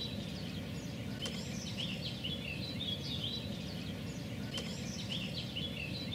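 Small songbirds chirping over and over in short repeated phrases, over a steady low outdoor rumble, with two faint clicks about a second and four and a half seconds in.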